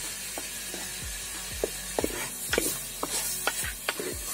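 Wooden spoon stirring chicken pieces in a clay pot, with irregular scrapes and knocks about twice a second over a soft sizzle. Background music plays underneath.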